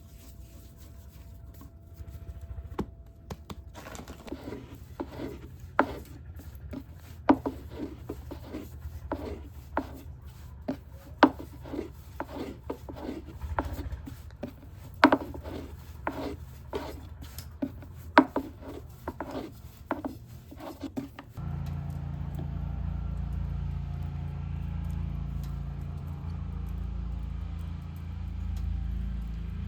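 A series of irregular sharp knocks and taps, about one or two a second, that stop about two-thirds of the way through. A steady low hum starts abruptly at that point and carries on.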